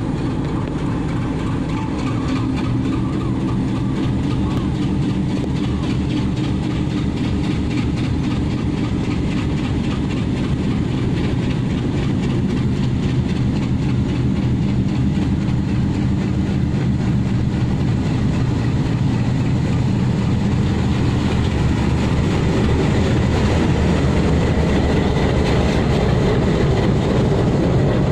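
Diesel-electric passenger locomotive running steadily as it approaches, growing gradually louder. It passes close near the end, as the coaches begin to roll by.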